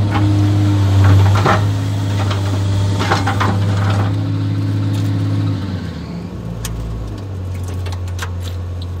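JCB JS 235 HD tracked excavator's diesel engine running steadily, heard from inside the cab, with a few short knocks and rattles in the first half. A little past halfway the engine settles to a lower, quieter note.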